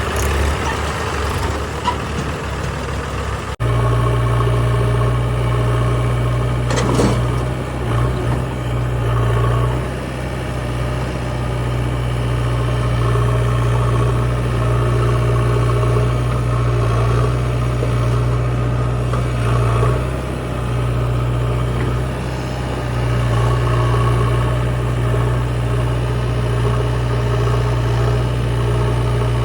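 Diesel engine running at a steady speed, with small swells in level. The sound changes abruptly about three and a half seconds in, as at an edit, then the engine hum continues unbroken.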